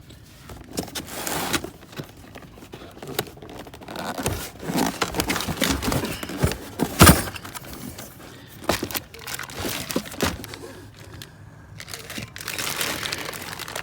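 Packaging crinkling and rustling, with scattered clicks and knocks, as brake rotors and pads are unpacked from their box. One sharp knock stands out about seven seconds in.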